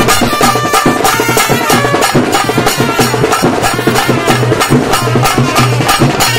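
Live Sri Lankan street band playing: double-headed barrel drums beating a fast, steady rhythm with trumpets playing a melody over it.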